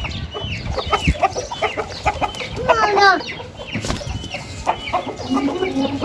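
Aseel chickens clucking: a run of short, falling calls, with one longer call about three seconds in.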